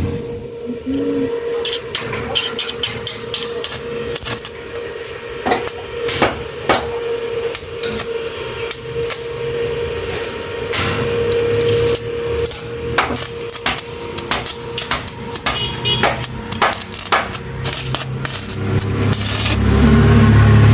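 A hammer striking metal in irregular blows, some close together and some spaced out, over a steady hum. Near the end a louder, low motor noise comes up.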